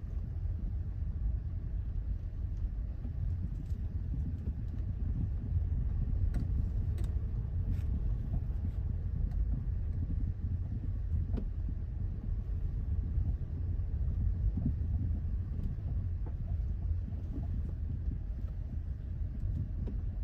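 Steady road rumble of a Hyundai Elantra CN7 driving over rough pavement, with a few short, sharp knocks scattered through it: the suspension knocks the car is being checked for.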